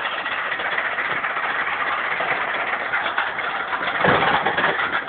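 Roller coaster train running along its track: a steady rushing rattle, with a low thud about four seconds in.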